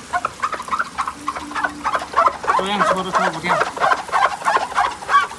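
Chicken clucking in a quick run of short calls, several a second, with a few lower, longer calls about halfway through.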